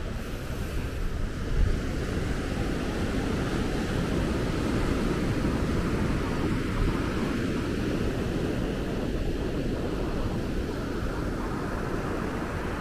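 Ocean surf rushing on the beach, mixed with wind buffeting the microphone: a steady rush that swells a little through the middle. There is one brief low thump about a second and a half in.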